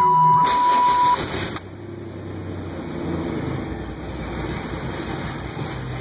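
1996 Chevrolet Blazer's V6 engine running with the fault the owner is showing, which appeared after the truck was used to jump-start another vehicle. A steady electronic beep sounds until about a second in, and a burst of noise cuts off about a second and a half in.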